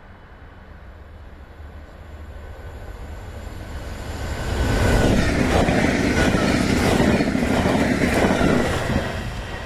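Z 26500 (TER 2N NG) double-deck electric multiple unit approaching and passing at speed without stopping. It grows steadily louder over about five seconds, then makes a loud rush of wheels on rail with a run of knocks as the carriages go by, easing off near the end.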